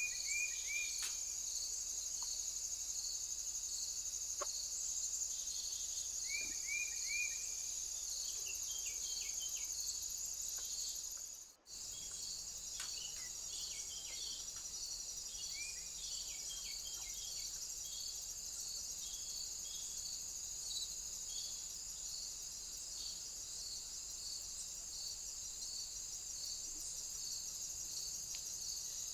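Steady high-pitched insect chorus, with a pulsing chirp repeating about twice a second. Short bird chirps come in small groups now and then in the first half. The sound cuts out for an instant near the middle.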